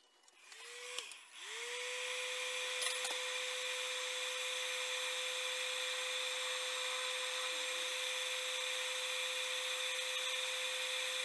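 Heat gun switched on for a moment, off, then on again about a second and a half in. Each time its fan motor spins up with a short rising whine, then it runs steadily with a rushing blow of hot air while shrinking heat-shrink tubing on wiring.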